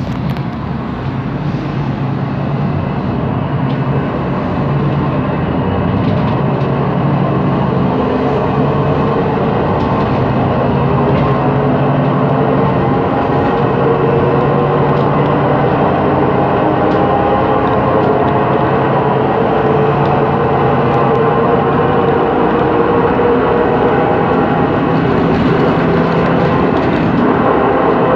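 Cabin noise of a MAN Lion's City CNG city bus under way. The drivetrain hum carries a steady whine from a faulty, noisy rear differential. It grows louder over the first several seconds.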